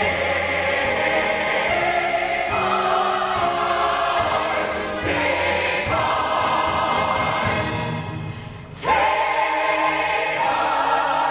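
Operetta chorus singing long held chords on a single stretched word, the chord shifting every two or three seconds. Near the end the sound dips briefly, then a loud new chord comes in.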